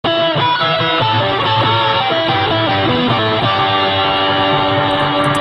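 Electric guitar playing a single-note melody through a custom fuzz-and-reverb pedal. The notes change quickly at first, then settle into a long sustained note about halfway through.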